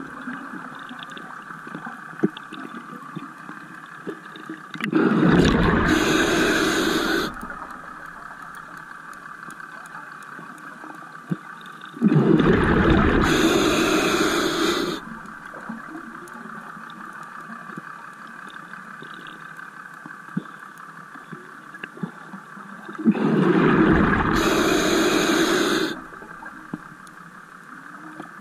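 Scuba diver's exhaled bubbles venting from the regulator: three long bubbling exhalations, each two to three seconds, about every nine to eleven seconds, with a steady hiss between them.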